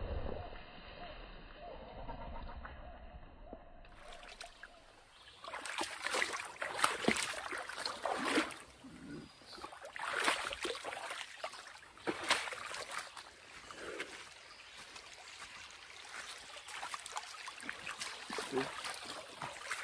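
A hiker's irregular footsteps and scuffs on a wet woodland trail, with rustle and knocks from a hand-held camera. The first few seconds are a quieter low rumble.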